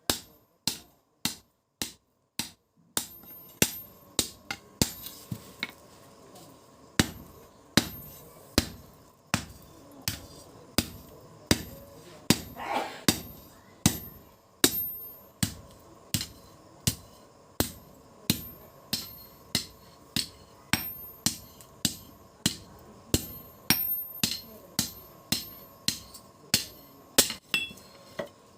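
Blacksmith's hand hammer striking a billhook blade on an anvil, a steady run of sharp blows about two a second, some lighter than others, each with a short metallic ring.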